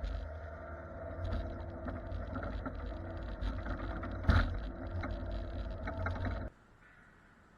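Heavy equipment engine running steadily with clanks and one loud knock partway through, then cutting off suddenly.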